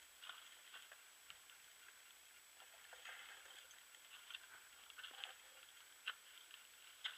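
Near silence with faint, scattered clicks and ticks, and two sharper clicks near the end.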